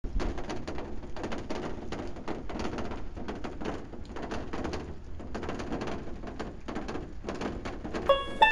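Dense, irregular rustling and clicking noise. Plucked-string music comes in just before the end.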